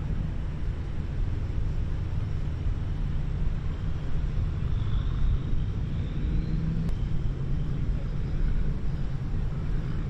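Landing craft's diesel engines running steadily at the waterline, a low even drone.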